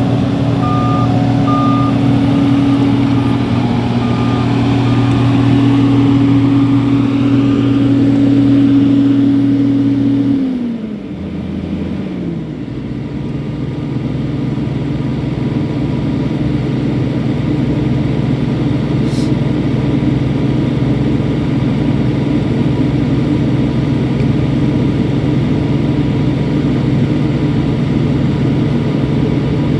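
Heavy diesel engine of a road milling machine running at high speed, with an intermittent warning beeper sounding over it for the first several seconds. About ten seconds in the engine pitch falls, then it runs steadily at a lower speed.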